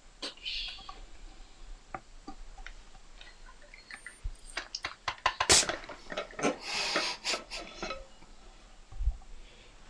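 Screw cap of a stainless steel drinking bottle being twisted open by hand: scattered clicks, then a dense run of sharp metallic clicks and scraping from the threads about halfway through. A low thud of handling comes near the end.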